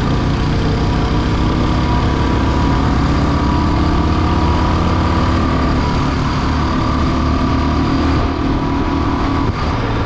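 Motorcycle engine running steadily while riding along a road, with wind and road noise. The engine note shifts slightly partway through.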